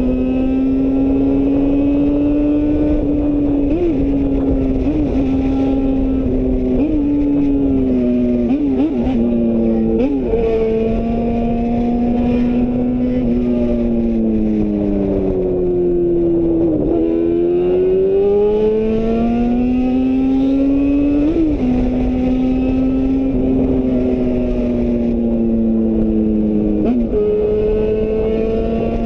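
Inline-four motorcycle engine running through a 4-into-1 exhaust, holding steady revs with short throttle blips every few seconds. About halfway through, the revs fall away and then climb back up.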